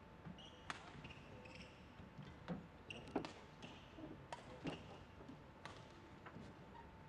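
Badminton rally: rackets striking the shuttlecock in a string of sharp cracks, irregularly spaced from a fraction of a second to about a second apart, mixed with short squeaks of shoes on the court floor.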